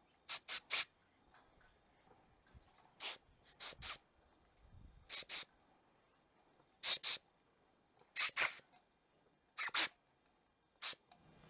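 Short hissing bursts of spray from a nozzle held against a small plastic Briggs & Stratton 500E carburettor jet, fired in quick clusters of two or three, every second or two. The spray is clearing dirt from the jet's tiny holes.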